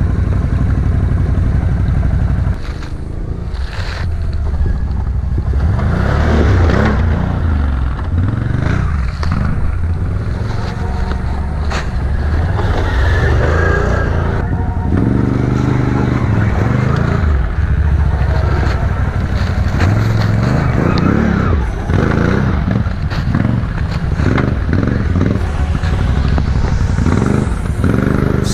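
ATV engine revving up and down in repeated bursts of throttle as the quad climbs a rough, rocky trail, its pitch rising and falling again and again.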